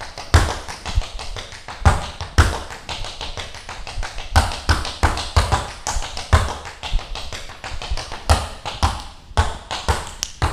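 Tap shoes with metal taps striking a wooden floor in a tap dance: a quick stream of sharp taps with louder accented strikes scattered through.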